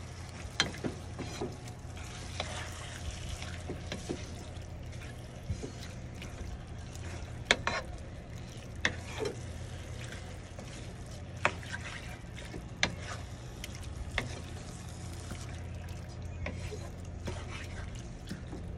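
Wooden spatula stirring chicken pieces in a frying pan, with irregular scrapes and knocks against the pan, over a steady low hum.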